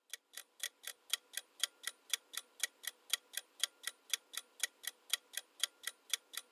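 Clock-style ticking sound effect of a quiz countdown timer: sharp, even ticks at about four a second.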